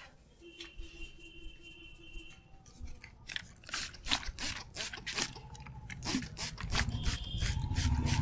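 A run of irregular sharp clicks and taps, with a low rumble building near the end.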